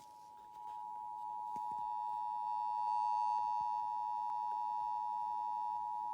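Emergency Alert System two-tone attention signal on a radio broadcast: a steady, unwavering dual tone that gets louder about half a second in and cuts off suddenly at the end. It marks the start of an emergency alert, here a tornado warning.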